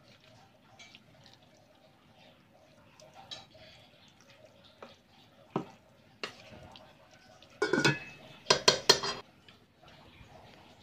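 A spatula stirring and scraping a thick minced-pork and curry-paste mixture in a stainless steel pot, with a few soft knocks. Near the end come several loud metal clanks in quick succession that ring on briefly: pot-and-lid or utensil-on-pot clatter.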